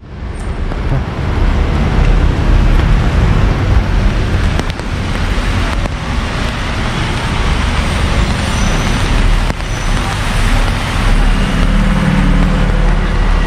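Road traffic on a rainy city street: a steady rushing noise with a low rumble of passing vehicles.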